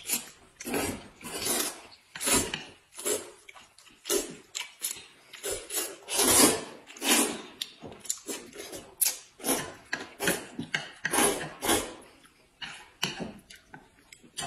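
Noodles being slurped again and again, short noisy slurps about once a second, the loudest near the middle.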